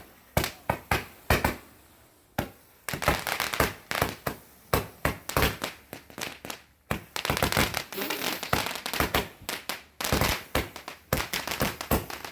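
Fireworks going off: a few separate sharp bangs, then from about three seconds in a dense, irregular run of rapid bangs and cracks, easing briefly twice.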